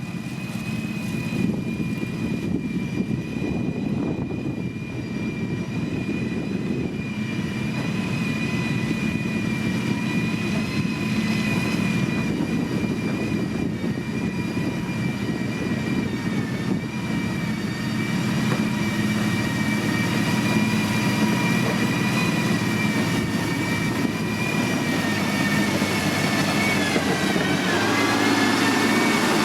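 Heavy diesel road-construction machine running steadily, a low engine rumble with a high steady whine over it; near the end the whine dips in pitch and climbs back as the machine changes speed.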